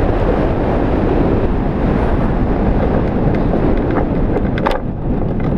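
Rushing airflow buffeting the microphone of a camera mounted on a hang glider in flight, a loud, steady roar of wind. A few short clicks or rattles come about four and a half seconds in.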